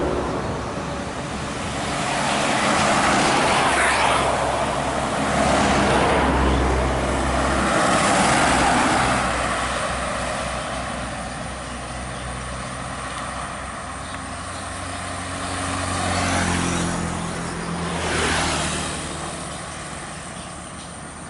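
Road traffic with vehicles passing close by one after another, the engine and tyre noise swelling and fading with each pass, about five times.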